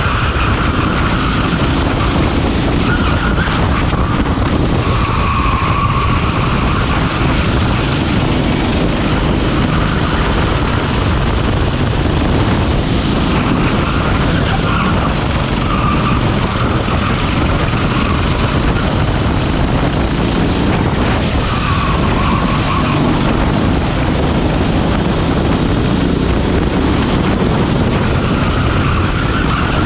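Go-kart engine heard onboard at racing speed, its pitch rising and falling every few seconds as the kart accelerates out of corners and lifts for them.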